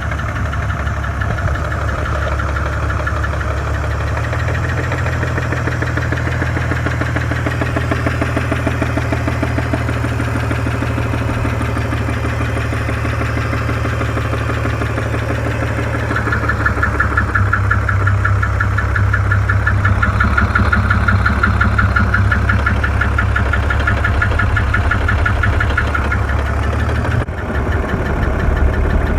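BMW 330i M54 3.0-litre straight-six engine running with a fast, rhythmic knocking, louder from about halfway through. The owner traces the knock to the rear of the engine, between the engine and the transmission, and suspects a fault in the bottom end.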